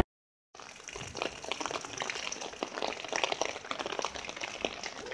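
Heavy rain falling on a flooded street and pavement: a dense, even patter of many small drops on standing water. It starts about half a second in.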